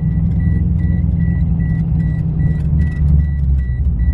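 Low rumble of a car heard from inside the cabin, under a dashboard warning chime beeping steadily about two and a half times a second. About three seconds in the rumble drops deeper as the LS-swapped 6.2-litre V8 dies out, which the driver puts down to a dead battery.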